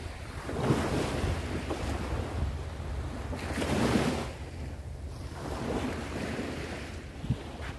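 Wind buffeting the microphone over the wash of Mediterranean surf on a sandy beach, swelling twice, about a second in and again around four seconds.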